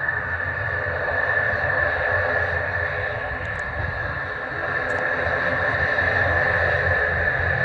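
ATR turboprop airliner's engines and propellers running steadily, a constant high-pitched tone over a low rumble, growing slightly louder after about five seconds.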